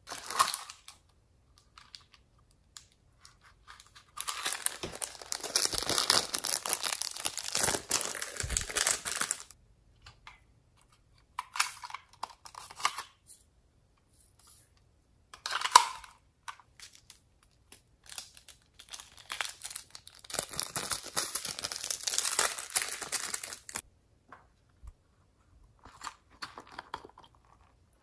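Small plastic beads and glitter toppings shaken and poured out of small plastic containers onto slime. Two long spells of dense, many-ticked pouring, about five seconds and four seconds long, with scattered clicks of the plastic containers between.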